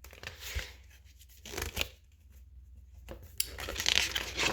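Paper pages of a picture book rustling as they are handled and turned: a short rustle about a second and a half in, and a longer one near the end.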